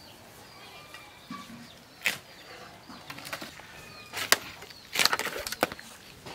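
Raw chicken being jointed on a boti's curved iron blade: a few sharp cracks as joints and bones give way, the loudest about four and five seconds in.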